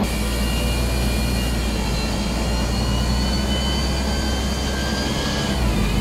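Interior of an old city bus on the move: steady low engine rumble and road noise, with high whining tones that climb slowly and fall away near the end.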